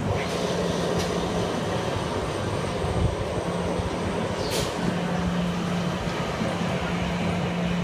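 Steady rumbling noise with a low hum, heard from the seat of a drop-tower ride as it is lowered toward the ground, with a couple of faint clicks.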